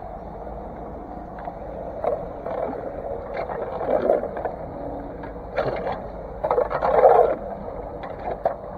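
Pooled rainwater rushing down a freshly unclogged street drain: a steady rush of water with louder irregular surges a few times, the loudest about seven seconds in.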